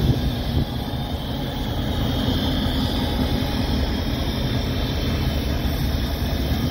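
Diesel locomotive and a train of empty coal hopper cars rolling past close by: a steady low rumble of the engine and of wheels running on the rails.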